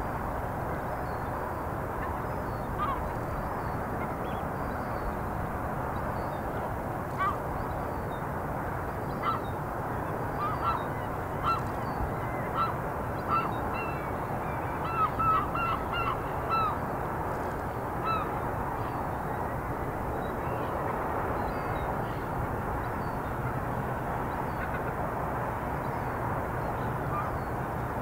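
Birds giving short, repeated calls over a steady background rush. The calls come thickest about halfway through.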